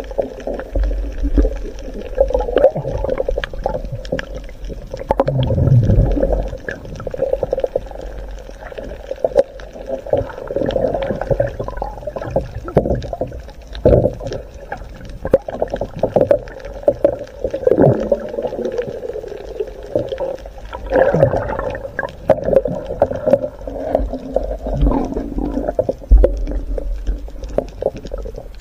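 Muffled water noise heard underwater: gurgling and sloshing with a low rumble, and frequent small clicks and knocks as the net and its catch move past.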